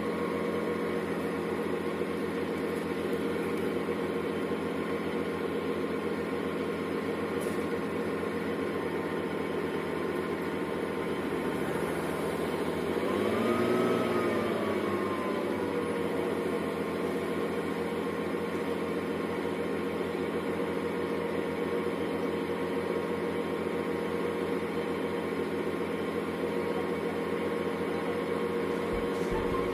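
Engine running steadily, a constant-pitched drone. About halfway through, a louder tone briefly swells and slides up and back down in pitch.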